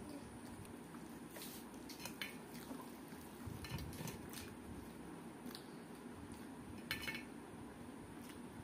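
Eating by hand from a steel plate: fingers scraping and gathering rice against the metal, with scattered light clinks, the sharpest about seven seconds in.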